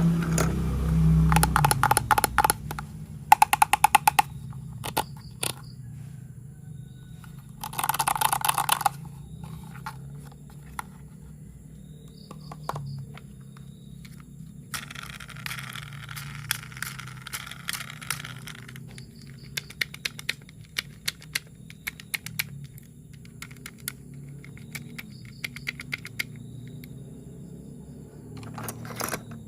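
Plastic toy train parts being handled and fitted together: irregular clicks and rattles, a few louder bursts of clattering, and a longer scrape partway through.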